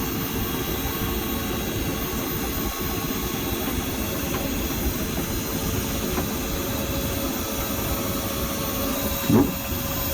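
HappiJac electric bed lift motor running steadily as the overhead bed moves, a constant mechanical hum with a faint steady whine.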